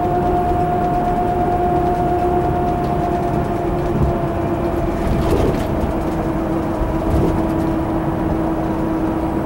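Road and engine noise inside a moving tour coach: a steady low rumble with a steady whine on two pitches, and a few soft knocks.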